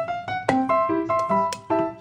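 Background music on a piano-like keyboard: a quick melody of single notes, about four or five a second, each struck and fading.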